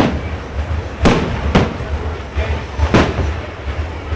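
Fireworks display: four loud bangs of bursting shells, one right at the start, two close together about a second in, and one about three seconds in, each trailing off in an echo, over a steady crackle and rumble of further bursts.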